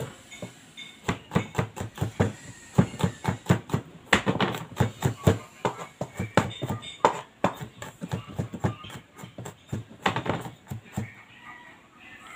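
Kitchen knife chopping garlic on a plastic cutting board: quick repeated knocks, about four a second, in runs with short pauses.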